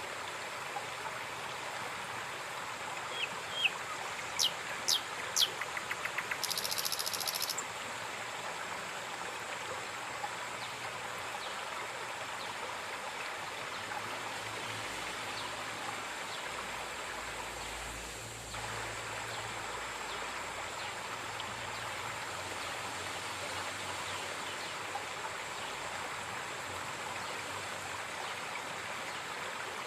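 River water flowing steadily. A few short, high chirping calls come a few seconds in, followed by a brief high buzzing trill.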